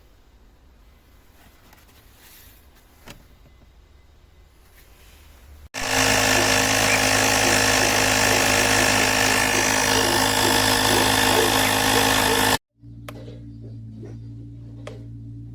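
The jump starter's small built-in 12V air compressor runs for about seven seconds, a loud, steady mechanical buzz that starts suddenly and cuts off abruptly. Before it there are a few seconds of quiet with light clicks, and after it a quieter steady hum with a few clicks.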